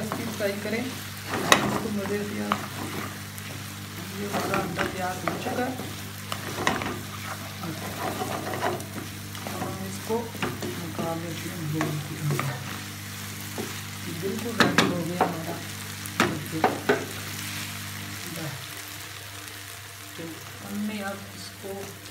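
Wooden spatula stirring diced potatoes and egg in a non-stick frying pan while they sizzle, with repeated knocks and scrapes of the spatula against the pan. The stirring eases off near the end.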